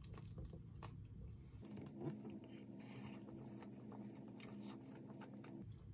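Faint scraping and light clicks of a metal fork in a plastic food tray, with quiet chewing.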